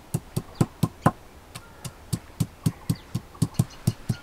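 A stone pestle (nora) knocking down on garlic cloves and ginger on a flat stone grinding slab (sil), crushing them. The sharp knocks come about four a second, with a short pause a little after a second in.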